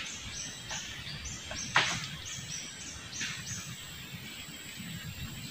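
Repeated short high chirps over a steady high buzz, with one sharp crack about two seconds in.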